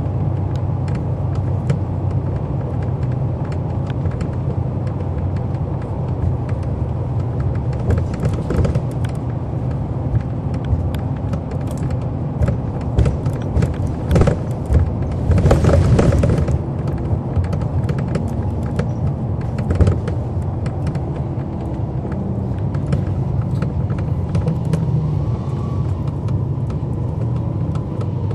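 Cummins ISL9 diesel engine of a NABI 40-SFW transit bus running, heard from on board: a steady low rumble with frequent small rattles, and a short hiss about halfway through.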